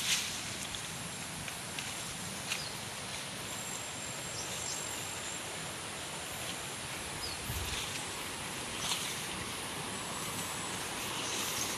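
Outdoor forest ambience on a trail: a steady rushing hiss, broken by a few scattered rustles and clicks of leaves and footfalls, and a couple of brief thin high chirps.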